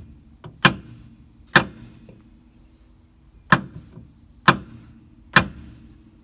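Five hammer blows on a wooden block, driving a new kingpin bearing race into a Suzuki Jimny's front swivel hub; each is a sharp knock, most with a brief high metallic ring after it. The race is going in crooked rather than squarely.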